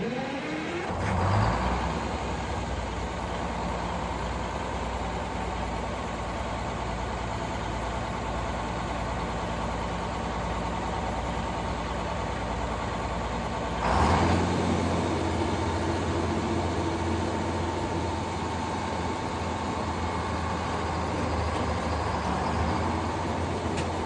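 An engine catches and runs up in pitch over the first second or so, then settles into a steady run. About fourteen seconds in, its sound steps up suddenly and gets louder with more low rumble, then runs steadily again.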